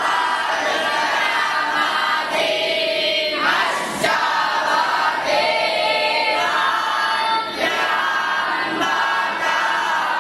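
Many voices chanting together in chorus, a steady unbroken wash of group voice.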